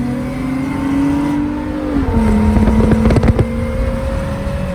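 Infiniti G35's V6 accelerating hard, its pitch climbing, dropping at a gear change about two seconds in, then climbing again.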